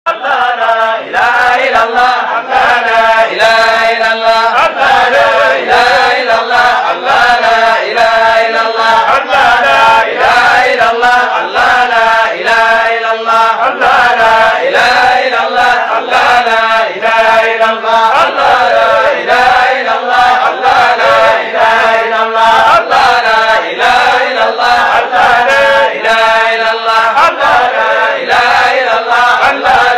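Male voices chanting a Sufi zikr together, one devotional phrase repeated over and over in a steady rhythm.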